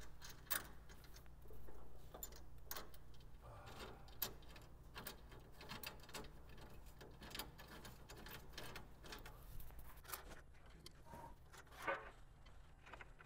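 Faint, irregular metallic clicks and ticks of hand tools and bolt hardware as a hood latch is fastened with long bolts and stacked-nut spacers.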